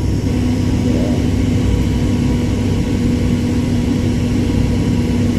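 Airliner cabin noise: the steady drone of the engines and airflow heard inside the passenger cabin, with a continuous low hum running through it.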